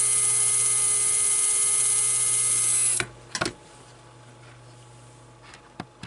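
Small electric motor of a Graham Farish N-gauge 94XX pannier tank locomotive running on bench power, a steady hum with a high hiss that cuts off about three seconds in. A few faint clicks follow.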